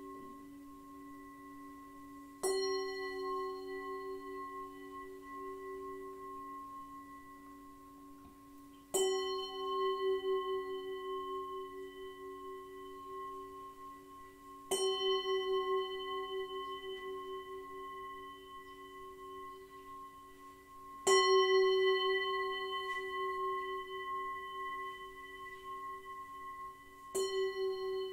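Himalayan singing bowl struck five times, about every six seconds, each strike ringing out long with a slow pulsing wobble. A lower bowl tone keeps ringing underneath throughout. The fourth strike is the loudest.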